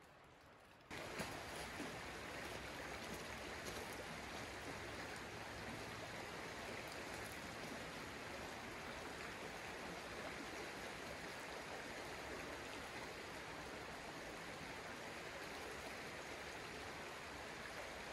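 Steady running water, cutting in suddenly about a second in.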